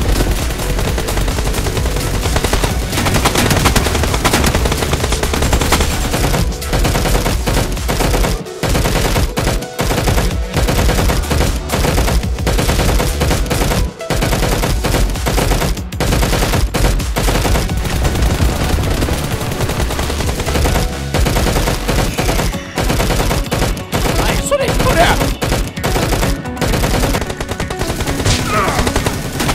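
Rapid bursts of automatic gunfire, a machine-gun sound effect standing in for the Nerf blasters, firing almost without pause with a few brief breaks between bursts.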